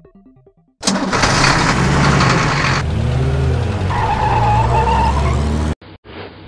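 Stock sound effect of a motor vehicle engine starting and revving for a monster truck driving away, coming in suddenly about a second in with rising and falling pitch, and cutting off abruptly near the end.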